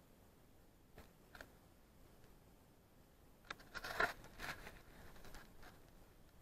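A couple of faint clicks, then a short run of scraping, crunching footsteps on loose rock and rubble, loudest about four seconds in.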